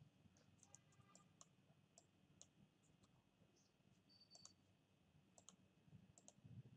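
Faint computer mouse clicks, about a dozen at irregular intervals, over near silence.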